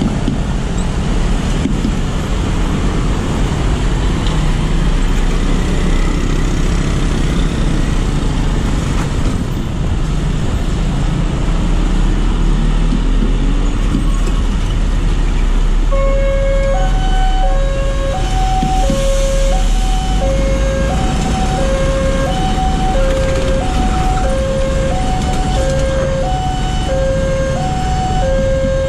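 Motorcycles and cars running over a railway level crossing, a steady mix of engine noise. About halfway through, the crossing's electronic warning alarm starts and keeps going, alternating between two tones about twice a second, signalling that a train is approaching.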